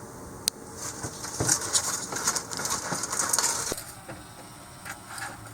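Food being served onto heavy plastic plates: light clicks and knocks with a crinkly rustle, one sharp click about half a second in, the rustling dying down a little after three and a half seconds.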